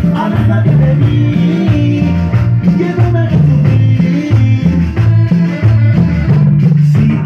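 Loud Latin dance music played over a DJ sound system, with a steady bass line.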